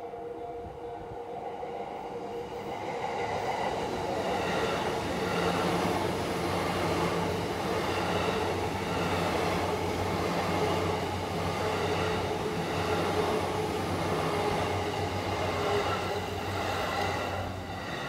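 JR East Yamanote Line E235-series electric train passing over a level crossing. The rumble of its wheels and motors builds over the first few seconds, with a rhythmic clacking of wheels over the rail joints, and eases off near the end. The crossing's warning bell keeps ringing underneath.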